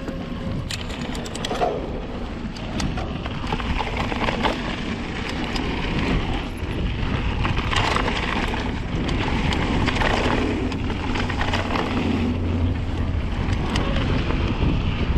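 Rocky Mountain Slayer mountain bike riding down a rough trail, heard through a GoPro action camera's microphone: steady wind rumble on the microphone and tyre noise on the ground, with many sharp rattles and knocks from the bike throughout.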